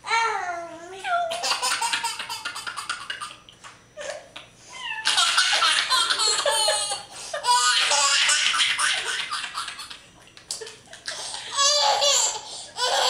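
Baby laughing hysterically in several long bursts of belly laughter, separated by short pauses for breath.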